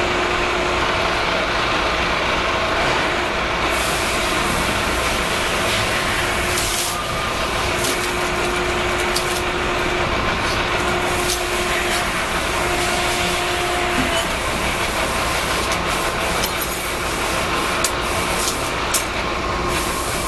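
Hydraulic power pack of a motor-stator splitting machine running steadily, its electric motor and pump giving a hum with a whine whose tones shift partway through as the machine works a stator under lever control. A few sharp clicks come near the end.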